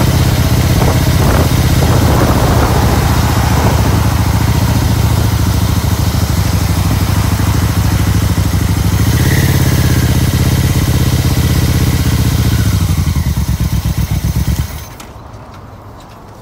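Yamaha motorcycle engine running under way, with wind rushing over the microphone. The sound cuts off suddenly near the end as the bike stops in a parking lot.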